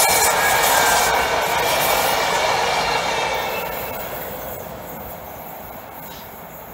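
Belgian SNCB electric multiple unit rolling past on the rails, with a faint high wheel squeal on the curve. The train noise fades steadily over the last few seconds as it pulls away.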